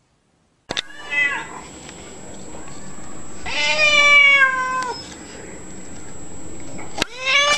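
Tabby cat meowing: a short meow about a second in, then a long, loud, drawn-out meow that sinks slightly in pitch around four seconds in. A sharp click comes near the end and another meow starts.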